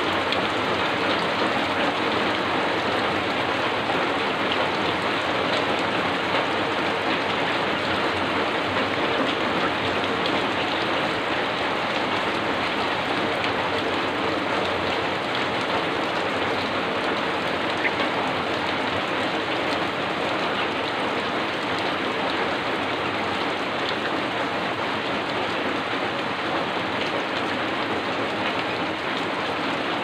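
Heavy rain falling, a steady, even hiss of downpour.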